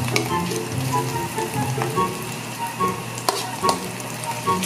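Sliced mushrooms sizzling and frying in a pan while a wooden spatula stirs them. A few sharp knocks of the spatula on the pan come about three seconds in.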